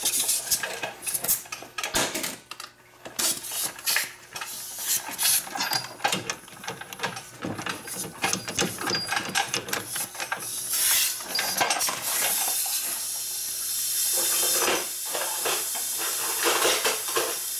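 Irregular metallic clinks and clatter of a socket and tools on the front wheel hub bearing bolts, then an impact wrench running steadily for several seconds near the end to loosen them.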